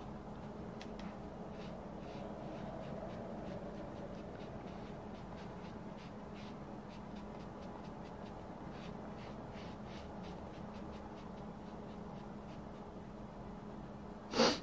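Faint soft dabbing and rubbing of a makeup applicator pad against skin while pressed powder is applied, a scatter of light scratchy ticks over a steady low hum. A short, louder noise comes right at the end.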